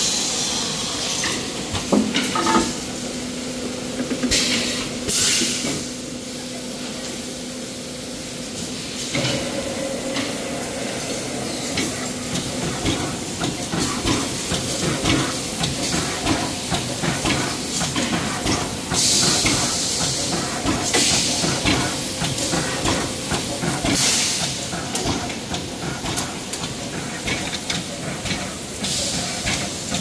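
Factory machinery running: a dense clatter of rapid metallic clicks, with short bursts of compressed-air hiss several times, and a steady hum that drops away about nine seconds in.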